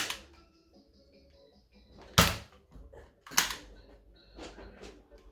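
Two sharp plastic clacks a little over a second apart from a toy foam-dart pistol in use, followed by a smaller knock.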